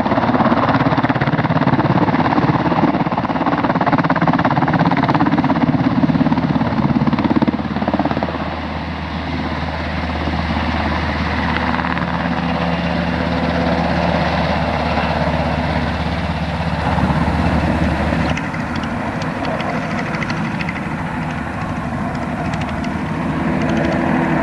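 Military helicopters flying low overhead: a loud, continuous rotor and engine drone. It eases slightly about a third of the way in, and its low band drops out abruptly about three quarters of the way through.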